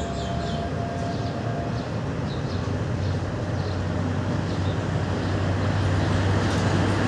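Sparrows chirping in short calls during the first few seconds, under a steady low vehicle rumble that grows gradually louder toward the end.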